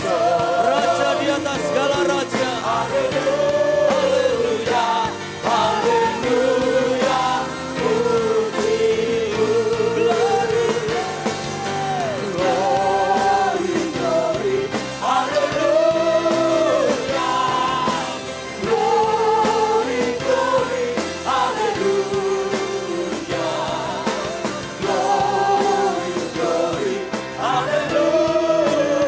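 Amplified worship singers leading a congregation in an upbeat gospel song, with instrumental backing music.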